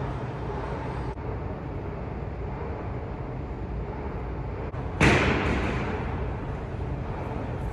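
Steady street background noise, then a sudden loud bang about five seconds in that echoes as it fades.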